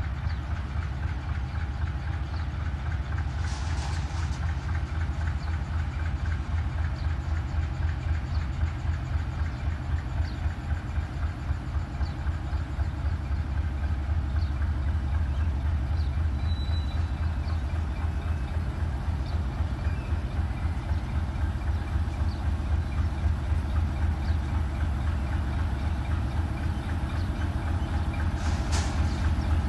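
Pakistan Railways RGE-24 diesel-electric locomotive running at low speed as it hauls a coal train closer: a steady, pulsing low engine thrum that grows slightly louder. A brief hiss comes twice, about four seconds in and near the end.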